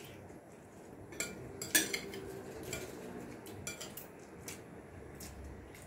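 Spoon clinking and scraping on ceramic plates during a meal: a handful of short, scattered clinks, the loudest about two seconds in.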